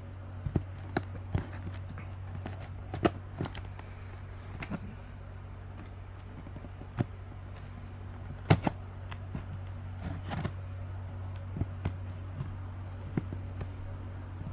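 Cardboard shipping box being cut and pulled open by hand: scattered clicks, scrapes and knocks, the loudest knock about eight and a half seconds in, over a steady low hum.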